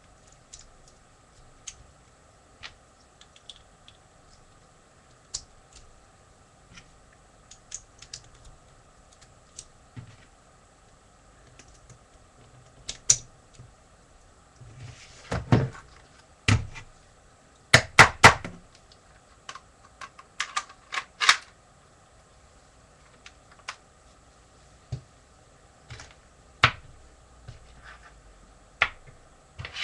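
Plastic Lego pieces clicking and knocking as a Lego brick-shooting toy gun is handled. Scattered sharp clicks come throughout, with a flurry of louder ones about halfway through.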